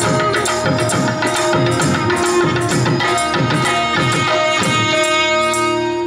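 Two alto saxophones playing a melody together over a steady percussion beat with tambourine jingles. Near the end the beat stops and the saxophones hold a long final note.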